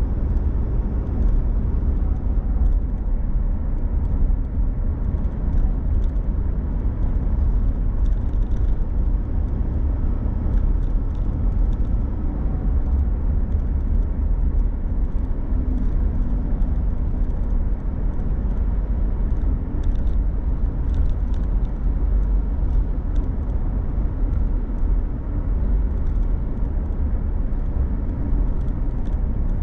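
A car driving, with a steady low rumble of engine and road noise and scattered faint high ticks.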